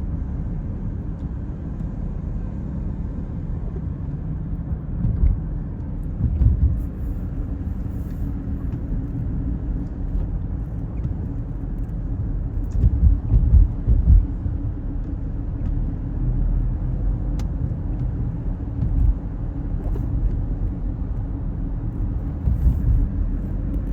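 Car driving, heard from inside: a steady low road-and-engine rumble, with a few brief louder swells along the way.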